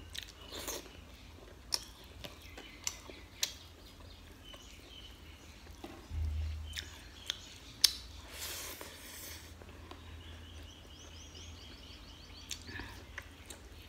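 Close-miked eating sounds: soft chewing of chicken and rice, with scattered sharp mouth clicks and smacks, and fingers mixing rice on a steel plate.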